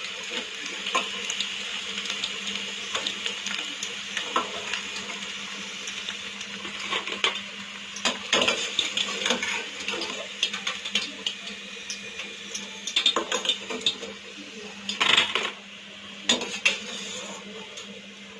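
A metal utensil clinking and scraping against a kadai as fried chicken pieces are lifted out of the oil, over a steady sizzle of deep-frying; a louder clatter comes about fifteen seconds in.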